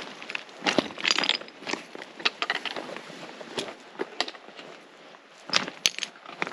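A hiker's footsteps crunching and scuffing irregularly on the trail, with sharp clicks among them.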